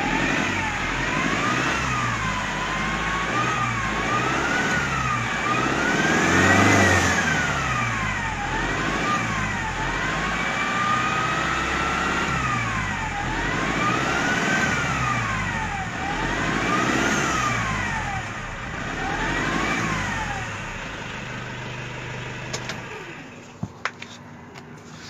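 Car engine being revved up and down over and over, about eight times, then dropping back to idle near the end, with a couple of sharp clicks. The engine is run to show an abnormal noise.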